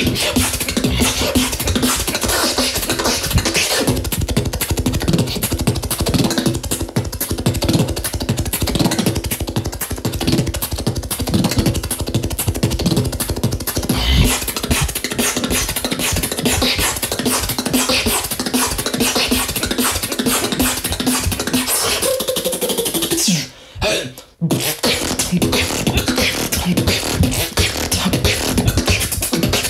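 Solo beatboxing in a fast, technical drum and bass style: rapid mouth-made kick, snare and hi-hat sounds over a held, humming bass tone. About 23 seconds in the beat slides in pitch and stops for about a second, then starts up again.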